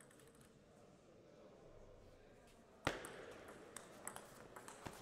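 Table tennis rally: faint ball taps at first, then a loud sharp hit about three seconds in, followed by quick clicks of the celluloid ball off the bats and table, about three a second.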